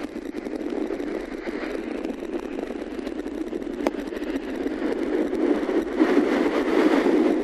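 Airflow rushing over the camera microphone in paraglider flight, a steady rushing noise that dips at the start and swells again about six seconds in.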